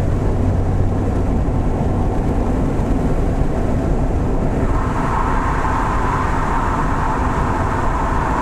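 Honda Integra DC2 heard from inside the cabin at expressway speed: a steady low engine hum under tyre and road noise. About five seconds in, as the car enters a tunnel, a higher hum joins the road noise and stays.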